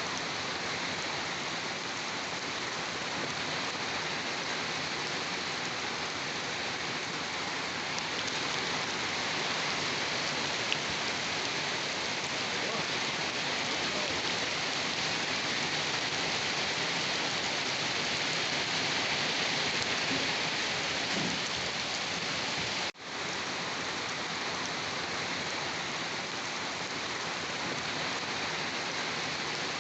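Steady rain falling, an even hiss of many drops that holds at one level. About 23 seconds in, the sound cuts out for an instant and comes straight back, like a splice where a recording loops.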